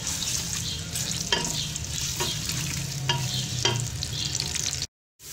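Sliced onions sizzling in hot oil in a pressure cooker, stirred with a spatula that scrapes the pot's bottom several times. The sound drops out for a moment near the end.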